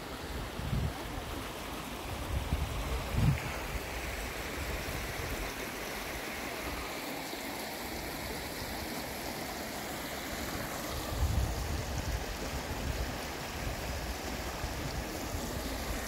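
A rocky stream running, a steady rushing hiss of water, with a few low gusts of wind buffeting the microphone.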